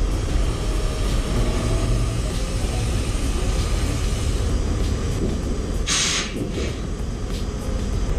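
Semi truck's diesel engine running with a steady low rumble as the trailer is moved over its locked tandem axle. A short burst of air hiss comes about six seconds in.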